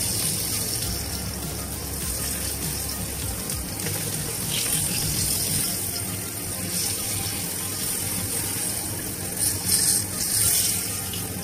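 Flour-coated oxtail pieces sizzling in hot oil in a frying pan as they brown, a steady hiss, while they are turned over with tongs. The sizzle flares up briefly a few times about ten seconds in.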